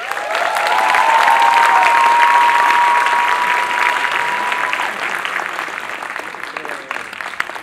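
Theatre audience applauding at the end of a dance, with long high-pitched cheers held over the first five seconds; the clapping eases off toward the end.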